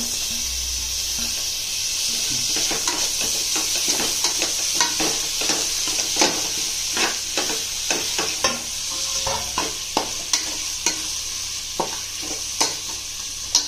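Chopped tomatoes with onions, garlic and ginger frying in oil in a pan: a steady sizzle, with a spoon clicking and scraping against the pan about once a second as the mixture is stirred.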